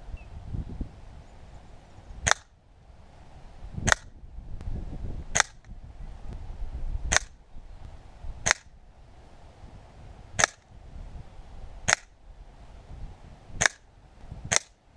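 Gamo Whisper Sting air rifle firing nine shots, one about every second and a half, each a short sharp crack, with a low rumble between the shots.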